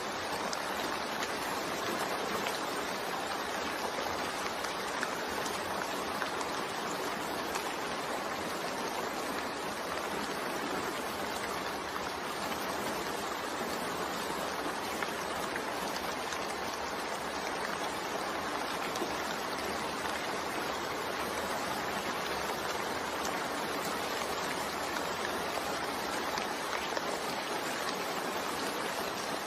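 Steady rain with white noise mixed in: an even, unbroken hiss with faint patter of drops.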